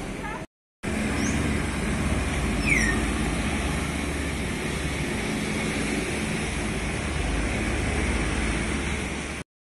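Steady road-traffic noise, a low rumble of passing engines and tyres, broken by two brief cuts to silence, one about half a second in and one just before the end.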